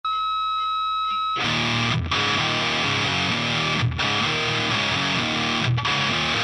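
A steady high tone for about a second, then loud rock music with distorted electric guitar. The riff breaks off briefly about every two seconds.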